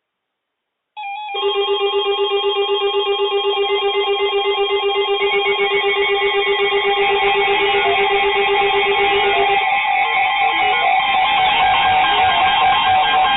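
Several NOAA weather alert radio receivers sounding their electronic alarms together, starting suddenly about a second in: a rapid pulsing low beep that stops about three-quarters of the way through, over steady and warbling higher tones that keep going. The alarms signal an incoming severe thunderstorm warning.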